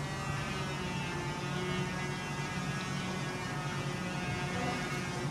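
A steady hum made of several held tones, unchanging throughout.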